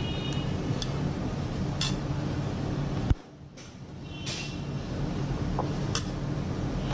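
Kitchen utensils giving a few light metal clinks over a steady low hum. About three seconds in a sharp click cuts the hum off, and it builds back up over the next second or two.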